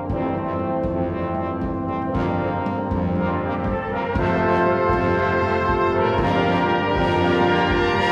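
Brass music playing slow, held chords that change together every couple of seconds, growing slightly louder.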